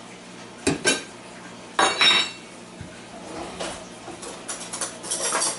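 Metal cutlery clinking and clattering as a teaspoon is fetched: two sharp clinks, a louder ringing clatter about two seconds in, then lighter rattling.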